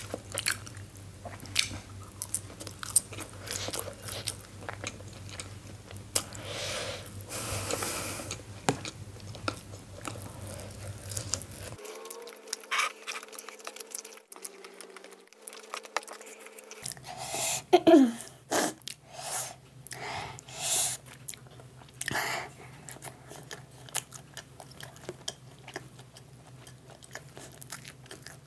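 Close-miked chewing and biting of steamed momos (dumplings) dipped in spicy chutney: soft, wet mouth sounds with many small clicks, in irregular bursts that grow loudest about two-thirds of the way through.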